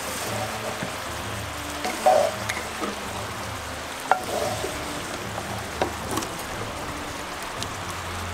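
Sugary orange sauce bubbling and sizzling in a cast-iron pan as it simmers, stirred with a wooden spatula that knocks and scrapes against the pan now and then.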